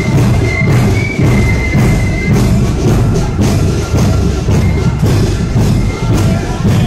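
Marching flute band playing: drums beat a steady march rhythm under a thin, high flute melody.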